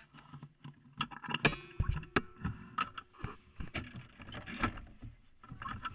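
Irregular knocks, clicks and rattles from a soapbox car's body and front suspension as it is handled or shifted while standing, with a steady tone for about two seconds a little way in.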